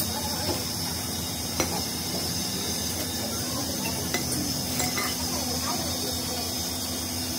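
New steel cylinder sleeves for a tractor engine block being unwrapped from plastic bags and set down on a concrete floor: plastic crinkling and a few sharp metallic clinks, over a steady low hum.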